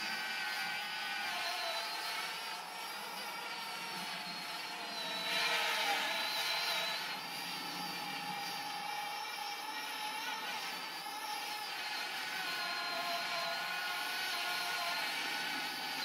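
Parrot Bebop 2 quadcopter's propellers whining, several pitched tones wavering up and down as the motors adjust, with a louder swell about five seconds in.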